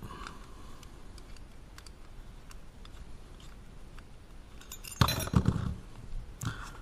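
Small hard parts clinking and rattling as they are handled and fitted together. There are faint light ticks at first, then a loud burst of clinks about five seconds in and another brief clink near the end.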